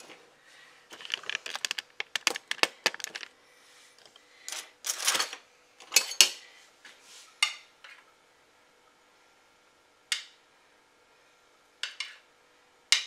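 Kitchen utensils and a glass baking dish being handled: a quick run of light clinks, a few louder clanks about five to six seconds in, then single clinks now and then.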